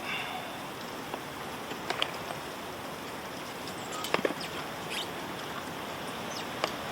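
Camp cooking gear being handled and rummaged through: light rustling and scattered small clicks and clinks, the sharpest a little after four seconds, over a steady background hiss.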